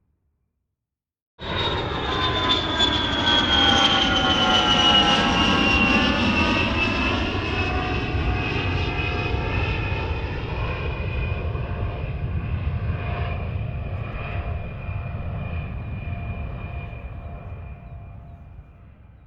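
Airplane flying past: engine rumble with a high whine that falls in pitch as it goes by, then holds steady while the sound slowly fades away. It cuts in suddenly about a second and a half in.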